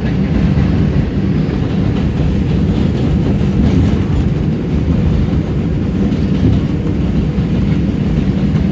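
New York City subway 4 train heard from inside the car, running on elevated track: a steady low rumble of wheels on rails.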